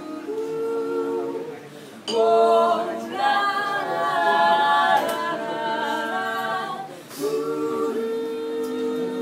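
A small vocal group singing a cappella in close harmony, several voices holding chords together that shift every second or so. The singing dips briefly about two seconds in and again about seven seconds in, then comes back louder.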